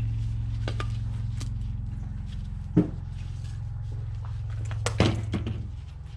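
Low steady drone of background music with a few sharp clinks and knocks of objects being handled, the loudest about three seconds and five seconds in; the drone cuts off abruptly at the end.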